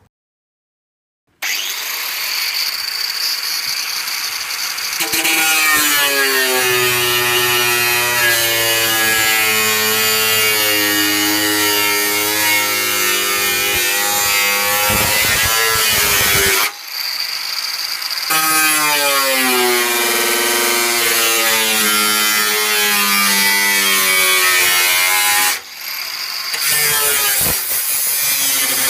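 Power tool cutting into a Dell desktop computer's casing, starting about a second and a half in. Its motor whine wavers up and down in pitch under load, and it stops briefly twice.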